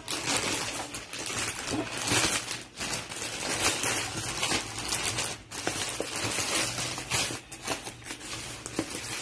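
A thin plastic shipping bag and a tape-wrapped bubble-wrap parcel crinkling and rustling as they are handled, in an irregular run of crackles with brief pauses.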